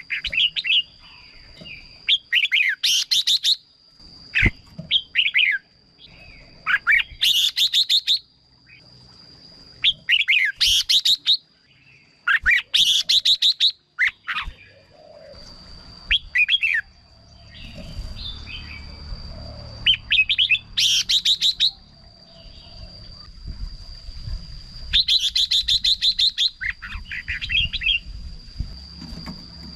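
Red-whiskered bulbuls singing: short, loud, chirpy song phrases of about a second each, repeated every second or two, over a thin steady high whine.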